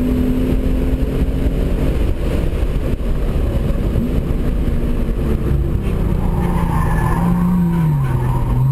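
Hyundai Genesis Coupe 3.8's V6 engine heard from inside the cabin, pulling at steady high revs along a straight with loud road and wind rush. Near the end the engine note falls as the car slows for a corner.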